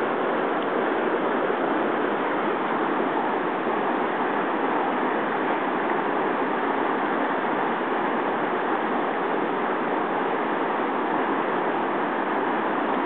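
Whitewater river rapids rushing: a steady, unbroken roar of fast water pouring over rocks.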